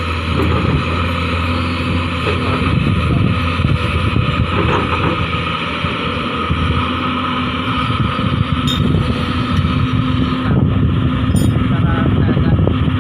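Large Hyundai hydraulic excavator's diesel engine running steadily with a constant low hum.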